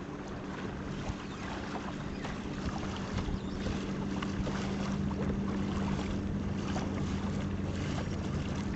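Steady low hum of a boat motor running at an even speed, under wind buffeting the microphone and the splash of choppy water.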